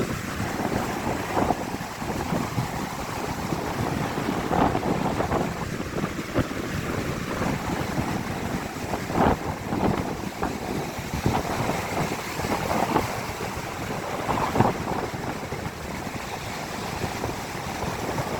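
Strong gusty wind buffeting the microphone over the rush of ocean surf breaking on the beach, with irregular gusts surging throughout.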